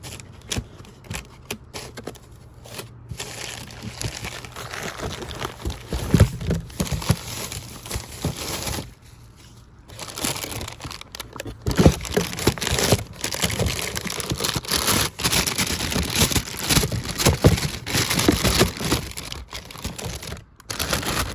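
Plastic packaging crinkling and rustling with many small crackles as a new water pump and thermostat assembly is unwrapped and handled, with a brief pause about nine seconds in.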